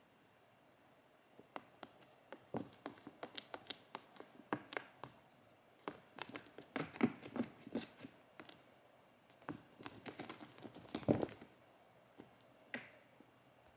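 Cat pawing at a toy and shifting about inside a cardboard box: irregular taps, scratches and soft knocks of paws and claws on cardboard, busiest about seven and eleven seconds in.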